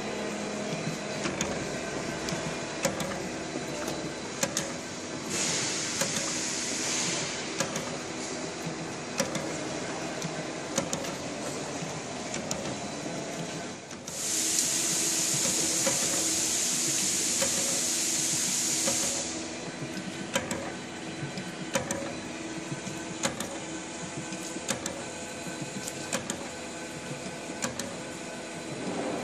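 SAVEMA feeder-conveyor belt and thermal transfer printer running: a steady mechanical hum with short clicks about every second and a half as items are fed and printed. A hiss sounds for about two seconds early on, and a louder hiss lasts about five seconds around the middle.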